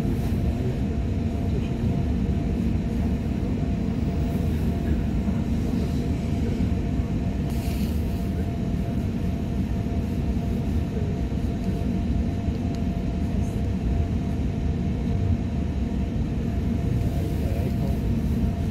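Passenger train running at speed, heard inside the carriage: a steady low rumble of wheels on track with a faint steady whine over it, and a brief hiss about eight seconds in.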